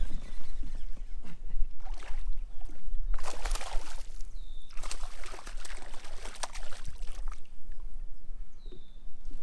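A hooked bass thrashing and splashing at the water's surface beside a kayak. There are two loud spells of splashing, about three seconds in and again from about five to seven seconds.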